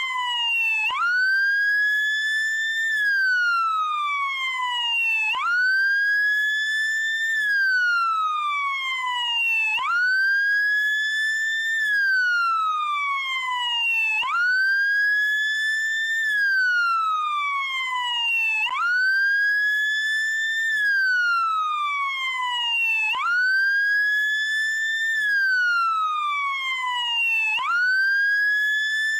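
Police car siren on the wail setting. Each cycle has a quick rise in pitch, a hold near the top, then a slow fall, repeating about every four and a half seconds.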